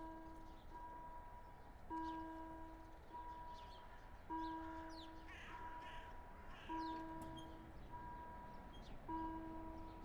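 Railway level-crossing warning bell ringing in a steady repeating pattern, about one chime a second, with every other chime stronger. A crow caws a few times near the middle, and small birds chirp.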